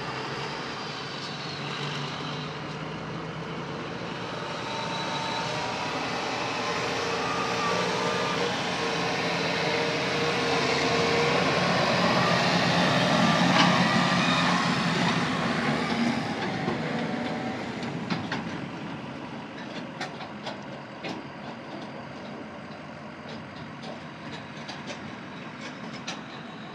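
A semi truck pulling a forage trailer rolls past, then a Case IH tractor's diesel engine, towing a forage dump wagon, drives by close, loudest about halfway through, then fades as it pulls away. Scattered clicks and rattles follow as it recedes.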